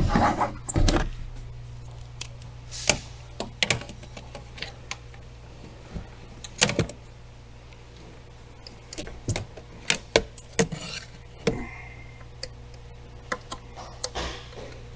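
Scattered sharp clicks and knocks of hands working at a plastic wiring-harness connector and parts around an SUV's ABS brake module, over a steady low hum.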